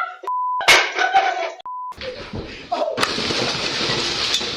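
Two short single-tone beeps, the kind used to bleep out spoken words, with a little speech between them; in the second half, a steady rushing noise.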